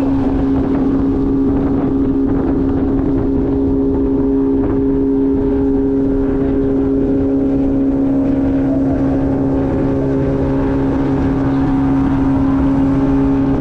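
A motorized river canoe's engine running steadily under way, holding one even pitch.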